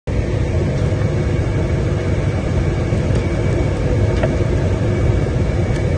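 Steady airliner cabin noise in flight: an even rumble of engines and rushing air heard from inside the cabin.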